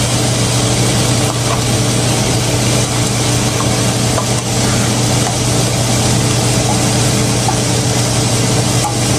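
Canned beef sizzling in a hot frying pan as it is spooned in with a wooden spatula: a steady frying hiss over a low hum, with a few faint scrapes.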